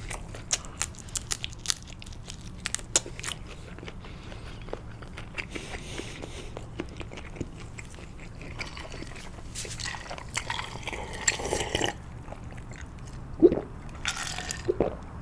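Close-miked chewing of a mouthful of sushi: wet mouth clicks and smacks, with a denser patch of chewing noise a little past the middle and a few louder smacks near the end.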